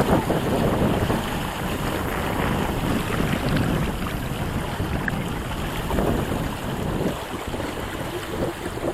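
Wind noise on the microphone aboard a small sailboat under way, with water washing along the hull.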